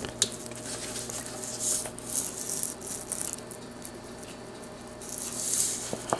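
Ground cinnamon shaken from a spice jar into a mixing bowl of flour: several short, hissing rattles of powder through the shaker lid.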